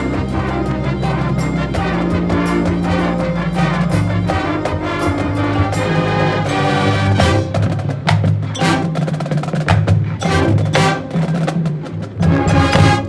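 Marching band playing its show: held low brass chords that shift every second or two, under percussion hits that grow denser and louder in the second half.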